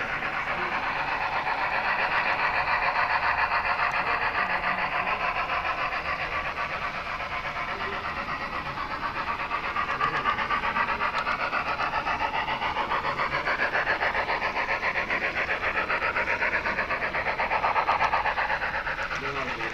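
HO-scale model train running along the track: a steady whirring and rattling of the small motor and wheels on the rails, its pitch drifting slightly with speed.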